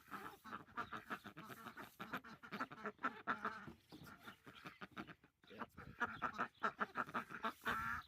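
A flock of domestic ducks quacking, many short calls overlapping in a steady chatter that grows busier and louder about six seconds in.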